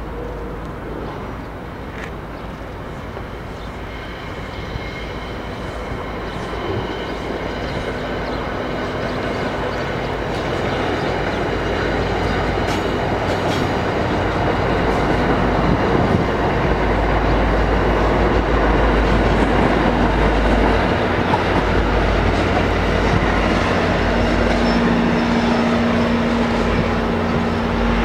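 Diesel-hauled NJ Transit commuter train rolling past on the rails, growing steadily louder through the first half and then holding. A steady engine hum from the EMD diesel hood-unit locomotive comes in near the end.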